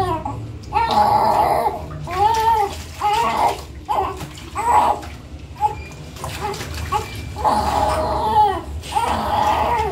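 Newborn baby crying: a string of wails rising and falling in pitch, some short and some about a second long, with hardly a pause between them.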